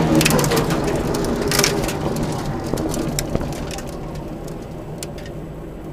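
Opel Ascona B rally car heard from inside the cabin, the engine coming off the throttle and the car slowing on gravel: the engine sound drops to a low hum and fades while loose stones tick and clatter against the underbody.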